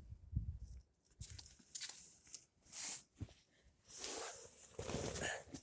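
Soft, scattered crunches and rustles of movement in fresh snow, with a few short separate crunches and then a longer rustling stretch near the end.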